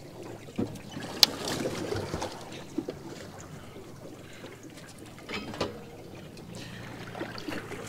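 Handling noises on a small fishing boat while a freshly caught squid is dealt with: a sharp click about a second in, then scattered faint knocks and rustles. A low steady hum comes in near the end.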